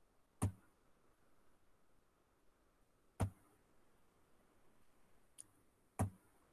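Three sharp computer-mouse clicks, roughly three seconds apart, with a fainter click just before the last one, over a quiet room background.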